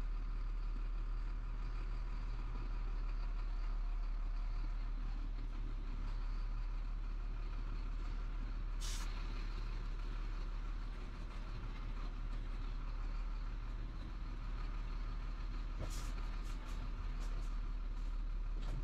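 Chenglong heavy truck's diesel engine running at low revs with a steady low rumble, heard inside the cab as the truck creeps and turns. A short hiss comes about nine seconds in, and a few light clicks near the end.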